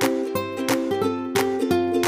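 Background music: a light plucked-string tune with a steady beat, about three notes a second.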